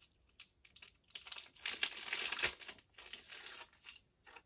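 Plastic packaging crinkling as a sheet of self-adhesive pearl embellishments is pulled from a clear bag and handled, with light ticks and taps. The crinkling is loudest about two seconds in.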